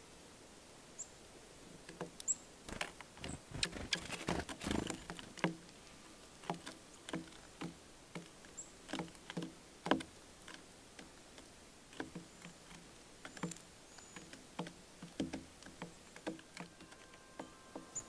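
Irregular light taps and clicks of small birds pecking at seed on a wooden platform feeder, thickest a few seconds in, with a few faint high chip notes.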